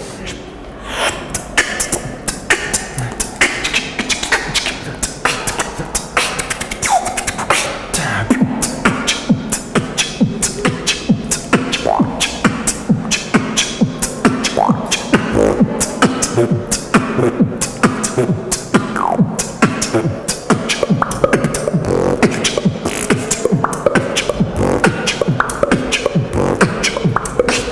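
Human beatboxing: fast, dense mouth-made kick, snare and hi-hat strokes with quick pitch glides, joined by a steady low bass tone underneath from about eight seconds in.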